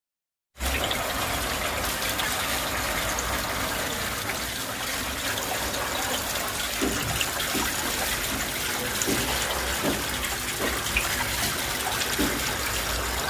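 Water splashing and trickling steadily down a small homemade garden waterfall fountain, starting abruptly about half a second in.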